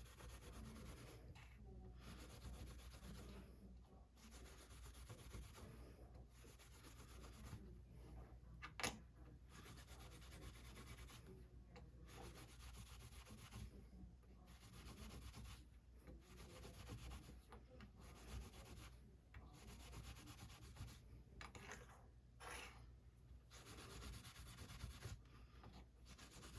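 Reel drag washers being scrubbed with 0000 steel wool: faint, scratchy rubbing in repeated strokes with short pauses, and a single sharp click about nine seconds in.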